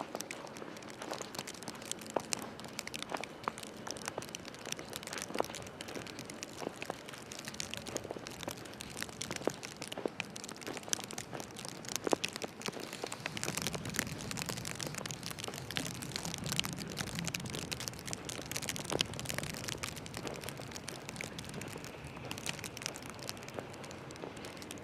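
Footsteps crunching on snow: an irregular run of soft crunches and clicks. A low rumble comes in about halfway through and dies away a few seconds before the end.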